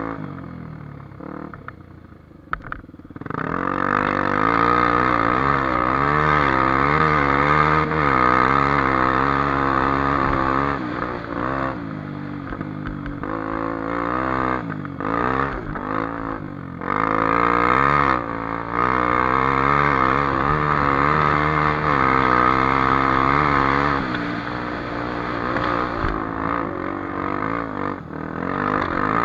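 Honda XR250 Tornado's single-cylinder four-stroke engine revving as the bike is ridden, its pitch rising and falling with the throttle. The revs drop back briefly about two seconds in and pick up again, then fall to a lower, steadier note near the end.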